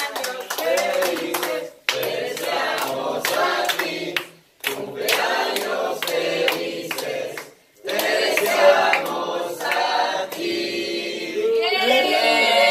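A group of people singing a birthday song together, with hands clapping along; the singing breaks off briefly three times.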